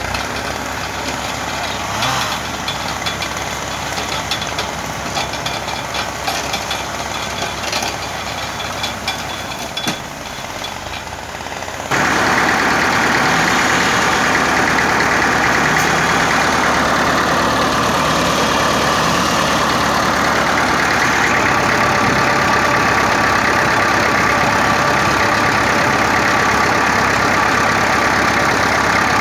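IMT 560 tractor's three-cylinder diesel engine running steadily while the winch is used to drag logs. About twelve seconds in, the engine sound suddenly becomes much louder and stays steady.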